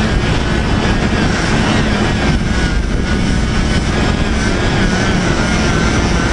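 Loud, steady drone of industrial plant machinery running, a constant low hum with a faint wavering whine above it.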